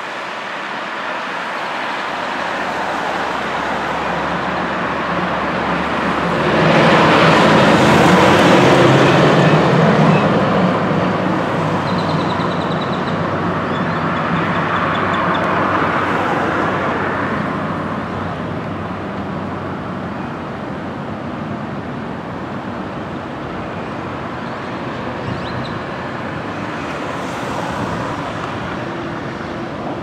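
City street traffic, with one vehicle's engine passing close and loud about seven seconds in, then fading away over several seconds.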